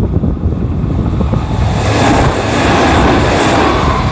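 Kintetsu electric train approaching and passing close by: a rising rush of wheel and running noise swells from about two seconds in and stays loud, over heavy wind buffeting on the microphone.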